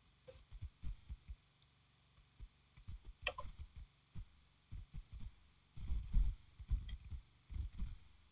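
Irregular low thumps and rumbles on an outdoor nest camera's microphone, typical of wind gusts buffeting it, heaviest in the second half, with one brief sharper click about three seconds in.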